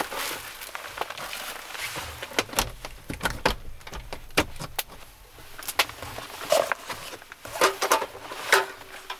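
Camping gear being handled inside a small van: irregular clicks, knocks and light clatter, with rustling of a foil-lined insulated pouch in the first second or so.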